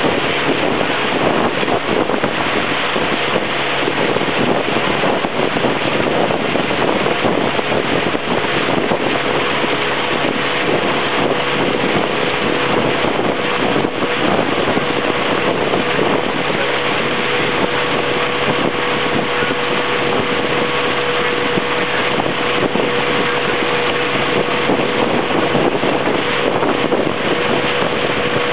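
Motorboat engine running steadily under way on a river, a constant drone with a steady hum, with wind buffeting the microphone.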